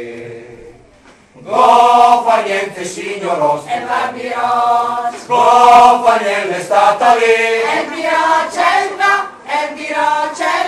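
A mixed choir of men's and women's voices singing an Italian folk song unaccompanied. The singing dies away briefly about a second in, then the next phrase starts together and carries on.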